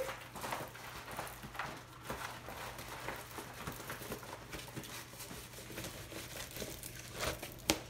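Plastic-wrapped diamond painting canvas crinkling and rustling as it is rolled back the other way to flatten it, with a sharp tap near the end.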